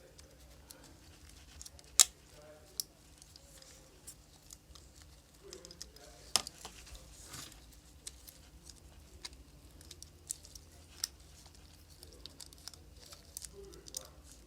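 Small parts of an opened Samsung Galaxy S8+ being handled and fitted back in place during reassembly: a scatter of light clicks and ticks. A sharp louder click comes about two seconds in and another around six seconds in.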